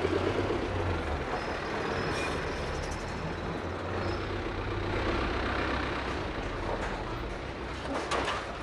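Military truck with a canvas-covered back, its engine running steadily as it drives off; loudest at the start, then easing slightly as it pulls away.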